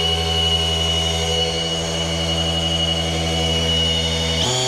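Electric drill spinning the small-block V8's oil pump to prime the oil system, a steady whine that steps up in pitch near the end as the drill speeds up; the pump is pushing oil up to the lifters and rocker arms before first start.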